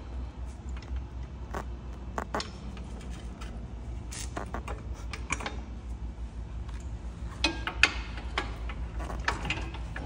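Irregular metallic clicks and clinks of hand tools working on the car's suspension, busiest in the second half, over a steady low hum.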